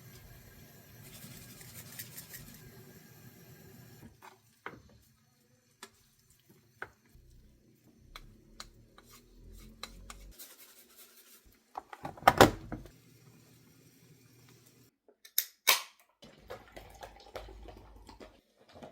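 Kitchen work: a tap running for the first few seconds and then cut off, followed by scattered clinks and knocks of dishes and utensils. The loudest is a knock about two-thirds of the way through, followed shortly by two sharp knocks.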